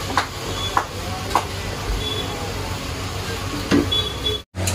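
Metal spatula and knife clicking and scraping on a large flat griddle (tawa) as a cooking mash is chopped and turned. There are three sharp clicks in the first second and a half, over a steady low hum.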